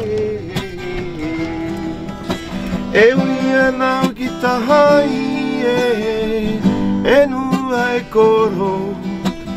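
Acoustic guitar strummed with a man singing a Rapa Nui song over it.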